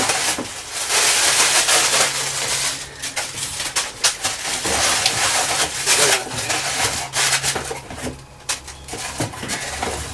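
Packaging being torn open and unwrapped: dense rustling and crinkling for the first few seconds, then scattered clicks and crackles that thin out toward the end.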